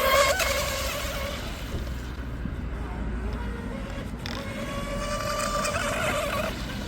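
Small electric RC mono speed boat's brushless in-runner motor whining on a 4S battery, loud and changing pitch at the start, then fading as the boat moves away and swelling again with a slight rise in pitch near the end.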